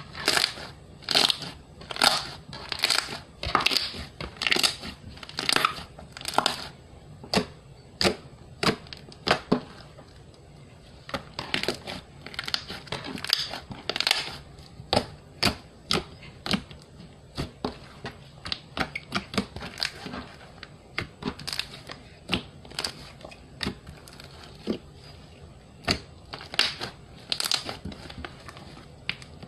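Slime being squeezed and pressed by hand, a run of short crackling squishes about one to two a second, coming faster and closer together in the middle.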